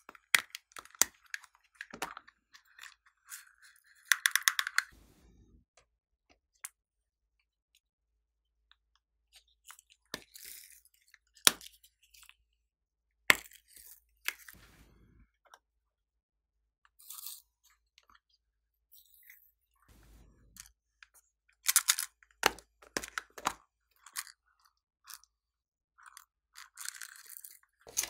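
Small plastic cases clicking open and being handled, and sequins and glitter shaken out of them onto slime: scattered sharp clicks and short rattles, with several quiet pauses between them.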